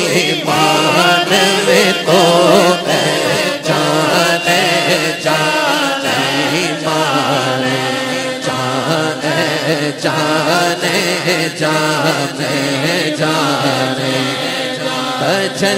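Naat chanting: a lead voice sings a melodic refrain over a steady low drone, with the gathering chanting along over the public-address system.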